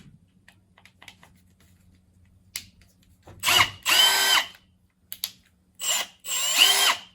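Milwaukee 1/2-inch cordless hammer drill run in four short trigger pulls, in two pairs about two seconds apart. Each pull spins the motor up and lets it wind down.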